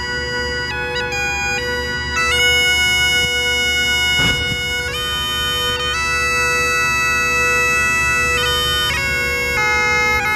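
Bagpipes playing a tune: the chanter's melody moves from note to note over a steady drone.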